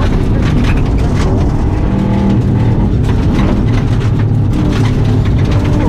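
Subaru WRX rally car's turbocharged flat-four engine running hard under load, heard from inside the stripped, caged cabin, with loose gravel ticking against the underbody throughout.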